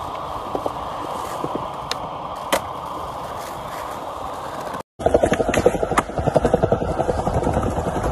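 Skateboard wheels rolling on smooth concrete, a steady rumble with a couple of sharp clicks. After a short break about five seconds in, a louder, rougher clattering rumble of wheels rolling over paving slabs.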